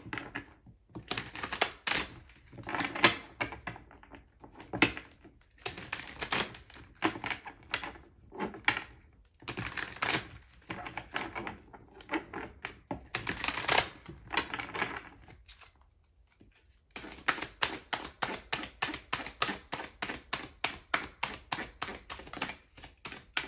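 A deck of oracle cards being shuffled by hand: irregular clusters of crisp card-on-card clicks and slaps, a brief pause past the middle, then a quicker, even run of about five clicks a second near the end.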